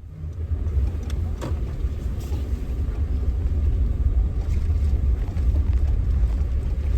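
A heavy, steady low rumble that rises over the first second, with a few faint clicks on top.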